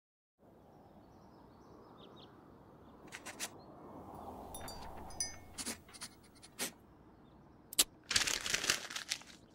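Quiet room ambience with a few faint bird chirps, then a run of sharp clicks starting about three seconds in and a short hissing burst near the end.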